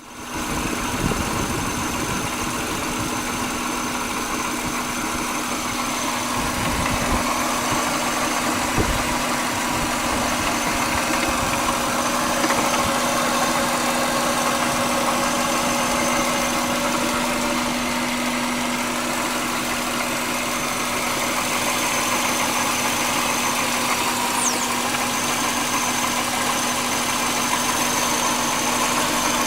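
Subaru EJ25D 2.5-litre DOHC flat-four idling with an intermittent knock, which the owner places toward the rear driver's side and hears only at idle. The engine has lately been idling rough and vibrating more than usual.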